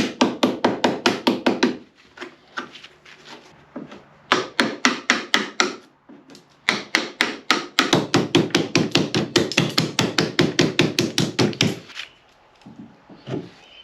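Hammer striking wood in quick, even blows, about six a second, in three runs with short pauses between.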